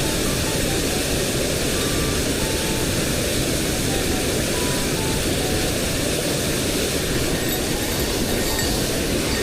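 Steady roar of a waterfall pouring into its plunge pool.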